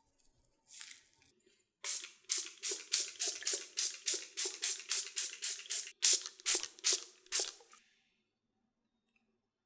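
Hand-pump spray bottle misting water over piped choux pastry batter before baking, so the shells bake with a crisp surface. It gives a rapid run of about seventeen short squirts, roughly three a second, with a brief pause about six seconds in.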